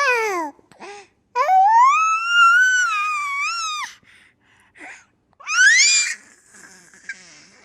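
A baby squealing in high pitch: a short falling squeal, then a long held squeal of about two and a half seconds, and a short squeal rising sharply in pitch near six seconds in.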